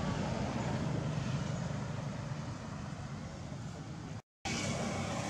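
Steady low outdoor background rumble with no distinct calls, cutting out completely for a moment about four seconds in.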